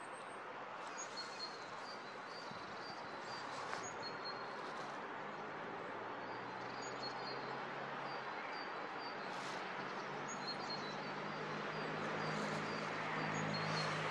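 Small birds chirping repeatedly over a steady outdoor rush. From about a third of the way in a low hum comes in and the noise swells toward the end as a train approaches on the line.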